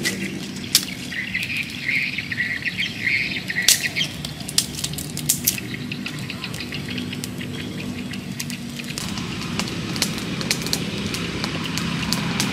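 Dry twigs and sticks clicking and snapping as they are handled and laid for a fire, with sharp clicks clustered in the first six seconds. Under them runs a steady low hum, with bird chirps in the first few seconds.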